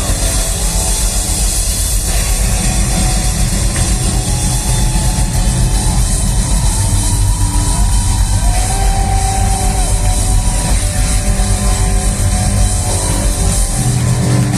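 Indie rock band playing live: loud drums and bass with a melody line gliding above them.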